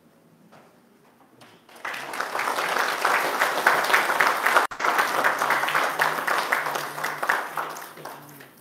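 Congregation applauding, starting about two seconds in, with a brief drop-out midway, and dying away near the end.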